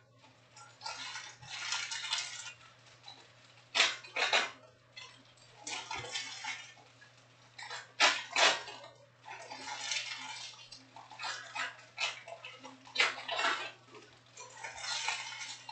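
Foil trading-card pack wrappers crinkling and being torn open, with cards handled, in repeated bursts every few seconds.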